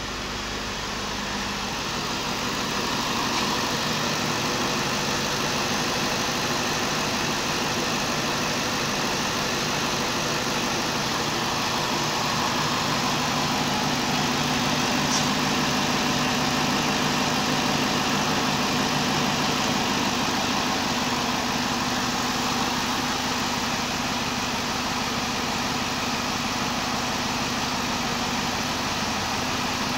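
2009 Cadillac DTS's 4.6-litre Northstar V8 idling steadily.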